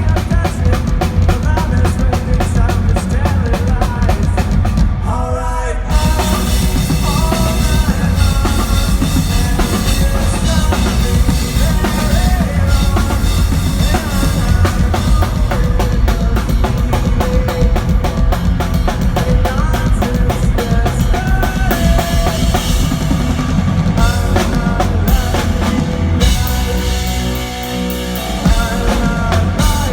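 Pop-punk band playing live at full volume, led by a driving drum kit with bass and electric guitars. The band drops back briefly about five seconds in, then comes back in on a hit.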